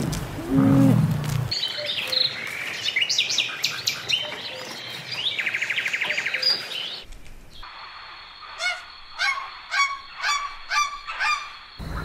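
A string of animal calls: low grunting calls for the first second and a half, then high chirps and a fast, even trill. From about 7 s on come about six sharp calls roughly half a second apart over a steady high whine.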